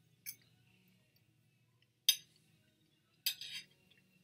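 A metal fork clinking against a ceramic plate three times: a faint tap near the start, a sharp clink about two seconds in, and a slightly drawn-out one near the end.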